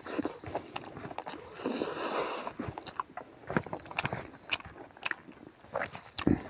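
Close-up eating sounds: a man chewing a mouthful of rice and smoked pork with irregular wet smacks and clicks, while his fingers gather rice on a banana leaf.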